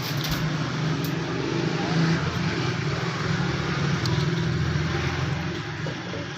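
A machine running steadily with a low hum under a broad noise.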